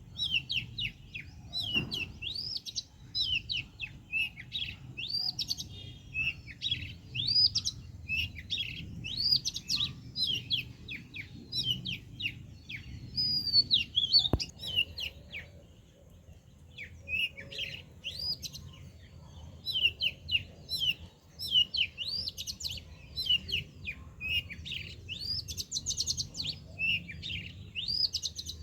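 Small birds chirping and twittering, many quick falling chirps crowding over one another, with a short lull about halfway through. A single sharp click stands out near the middle.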